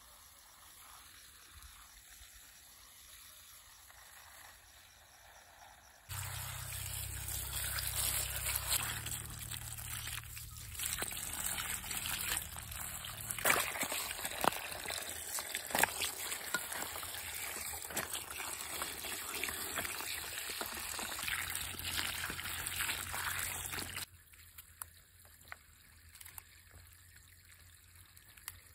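Water from a garden hose running and splashing into a plastic basin of peppers as they are rinsed, with scattered knocks of the peppers being handled; it starts suddenly about six seconds in and cuts off abruptly a few seconds before the end. Before it there is only faint outdoor quiet, and after it a few sharp clicks as a knife trims the peppers.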